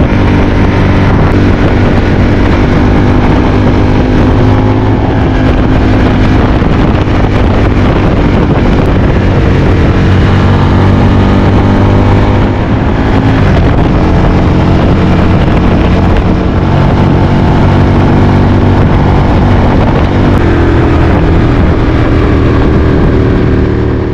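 Aprilia Tuono 1000R's V-twin engine running as the motorcycle rides along, with wind rushing over the microphone. The engine note eases off briefly about halfway through and then climbs again.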